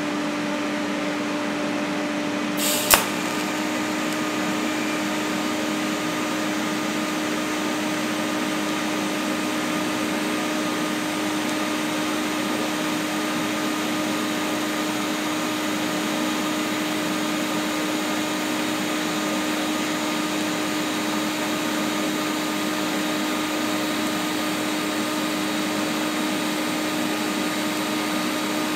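TIG welding 2.5 mm stainless steel sheet: a steady hiss with a constant hum from the welder and arc, and one sharp crack about three seconds in.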